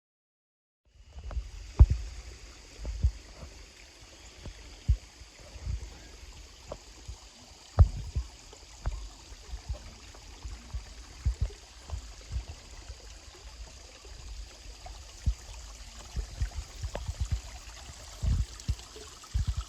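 Creek water running steadily, starting suddenly about a second in, with frequent irregular low thumps and bumps on the microphone louder than the water.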